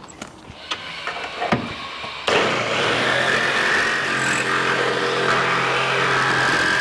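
A power saw starts cutting about two seconds in and runs at a steady high speed through the car's roof pillar. This is the last cut to take the roof off the car body. Light clicks and knocks come before it.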